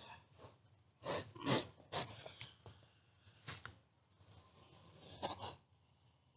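Monocled cobra hissing in about six short, sharp bursts, the loudest between one and two seconds in and a close pair near the end: defensive hisses from a cornered cobra.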